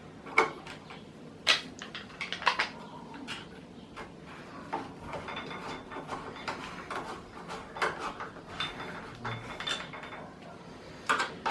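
Irregular small metallic clicks and clinks of screws and door-lock hardware being handled and fitted, with a brief faint ringing twice in the middle.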